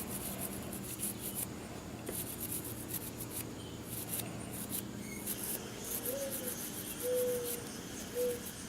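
Quick, scratchy rubbing and scraping strokes in short clusters: a Zippo lighter's parts being scrubbed and handled by hand while it is cleaned with lighter fluid.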